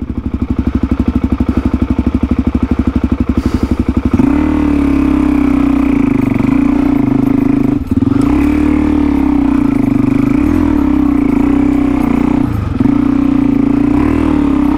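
Dirt bike engine running with an even, rapid firing beat, then held at a steady, higher-pitched rev from about four seconds in, dipping briefly twice.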